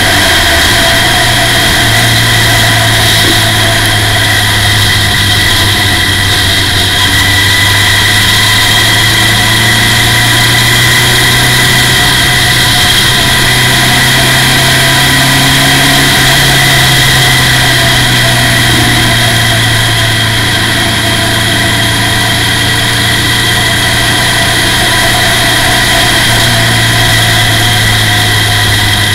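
Formula Ford race car's engine running loud and steady under way, heard from the open cockpit. Its pitch holds nearly level, stepping up slightly about a second in and dropping back near the end.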